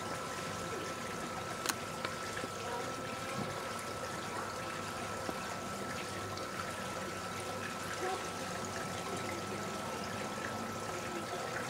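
Steady outdoor background hiss with a faint continuous high tone, broken by a single sharp click a little under two seconds in.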